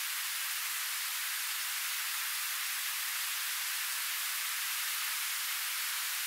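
Steady rush of flowing river water, an even hiss with no low rumble.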